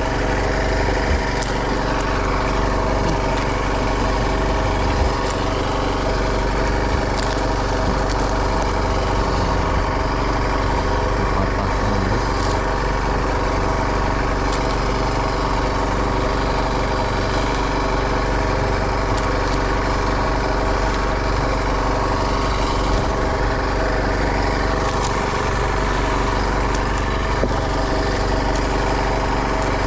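A small boat's engine running steadily at constant speed.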